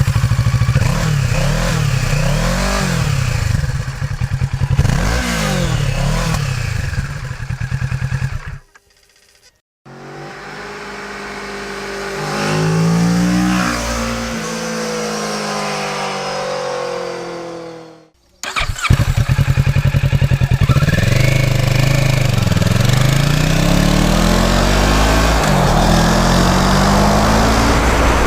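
Kawasaki Z650's parallel-twin engine through its stock silencer. It is first revved several times at standstill, the pitch rising and falling with each blip. Then, after two cuts, it is heard on the move, pulling up through the gears with the pitch climbing and dropping at each shift.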